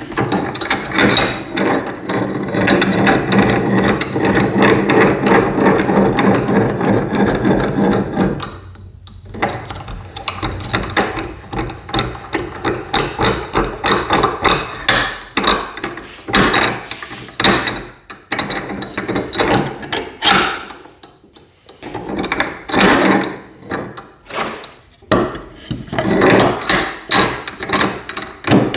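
A woodworking bench vise being worked. First comes about eight seconds of continuous mechanical rattling, then a long run of irregular knocks and clicks.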